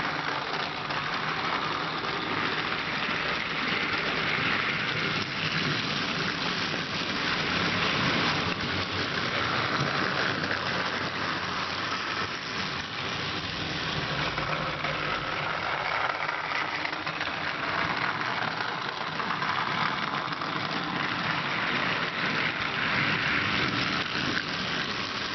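Battery-powered Trackmaster toy train's small electric motor whirring steadily as it runs along plastic track, with its wheels rattling over the rails.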